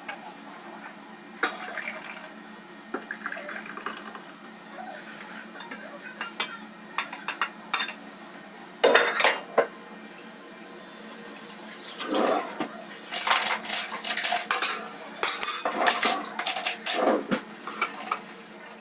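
China mugs and plates clinking and clattering on stainless steel serving trays. There are scattered light clinks at first, soup pours into a mug about nine seconds in, and there is busier clattering of a metal tray in the last seconds as it is handled and lifted.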